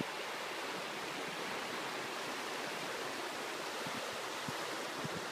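Floodwater of the North Saskatchewan River rushing steadily past, fast and turbulent where it pours over submerged riverside railings. A few brief low thumps come near the end.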